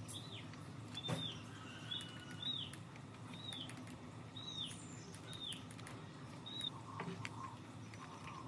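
A bird calling repeatedly, a short arching chirp about once a second that stops about seven seconds in. Faint scratching clicks come from a metal pick working at the centre of the speaker cone, over a steady low hum.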